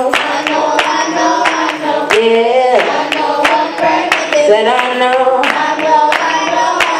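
Children's choir singing a gospel song, one girl's voice leading through a microphone, with steady hand-clapping on the beat.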